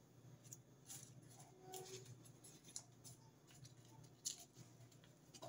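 Faint rustling and crinkling of brown bread-bag paper handled and pressed by hand onto a cardboard box, a few soft scratchy touches, the clearest about four seconds in.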